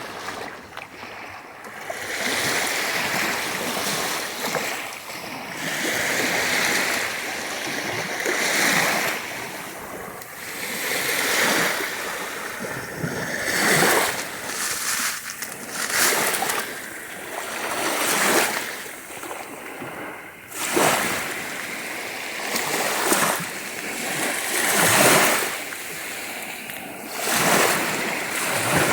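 Sea surf breaking on the shore, the waves swelling and washing back in repeated surges every two to three seconds.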